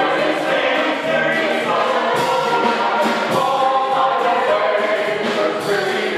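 A stage cast singing together in chorus in a musical-theatre number.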